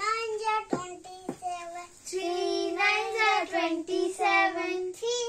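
Child chanting in a sing-song voice, several phrases with drawn-out held notes, the way a times table is recited.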